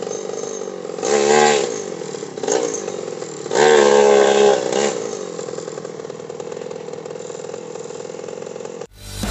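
Motorcycle engines in street traffic, running steadily, with two louder passes of wavering pitch about a second in and around four seconds in. The sound cuts off suddenly near the end.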